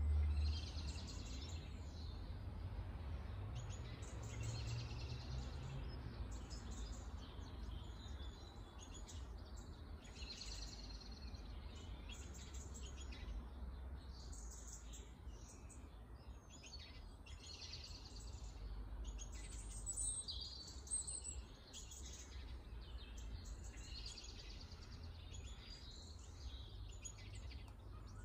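Small songbirds singing and calling in short phrases repeated every second or two, one louder phrase about two-thirds of the way in, over a low steady rumble.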